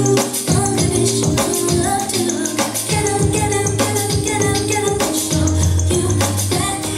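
Upbeat retro-style pop music with a steady beat, a tambourine-like shaker and a sung melody, played loud over a sound system.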